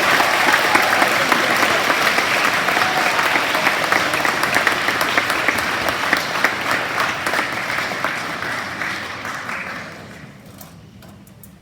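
Audience applauding, a dense clatter of many hands clapping that thins and dies away about ten seconds in.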